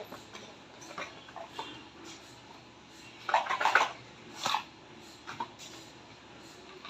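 Scattered clicks and clattering of small hard objects being handled. There is a louder cluster about three and a half seconds in and another knock about a second later.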